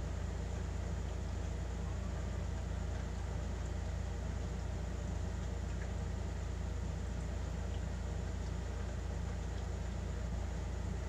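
Steady low hum with an even hiss over it, unchanging throughout, with no distinct events.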